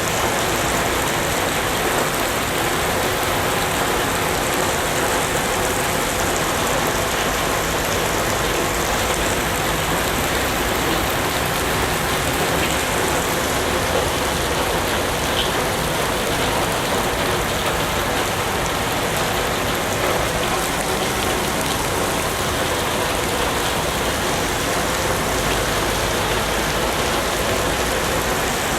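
Steady heavy rain falling and pattering on surfaces, a dense even hiss without a break.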